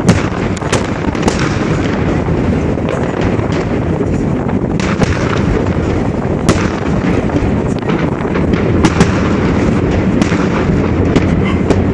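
Aerial firework shells bursting: an irregular string of sharp bangs and cracks over a steady low rumble.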